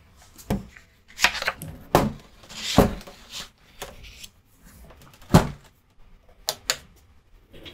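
A light table and a sheet of drawing paper being handled and set down: a series of irregular knocks and thuds, the loudest about five and a half seconds in, with a brief scraping rustle of paper near the three-second mark.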